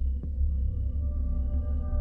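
Ambient film score: a deep steady hum with several held, ringing tones that come in about half a second in, and a faint tick just after the start.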